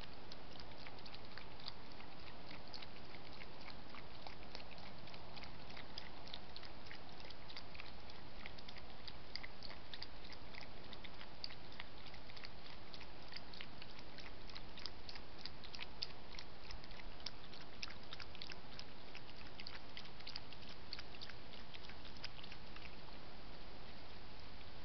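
A fox feeding at a shallow dish, making a long irregular run of small clicks with its mouth that stops near the end, over a steady hiss.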